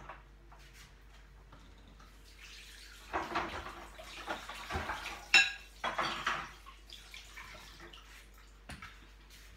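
Tap water running for a few seconds, with one sharp metal clink partway through. A faint steady hum underneath.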